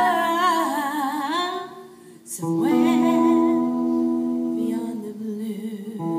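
A woman singing a country gospel song into a microphone, holding long notes. It starts on a wavering note, dips briefly about two seconds in, then moves to long, steady sustained notes.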